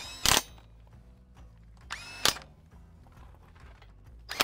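Handheld power tool driving the excavator's belly-pan bolts in three short bursts about two seconds apart, the motor whining quickly up to speed each time.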